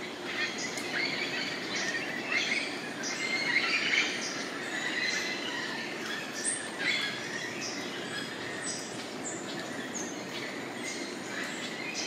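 Chorus of rainforest birds: many overlapping chirps, whistles and short calls from several birds at once, over a steady background hiss.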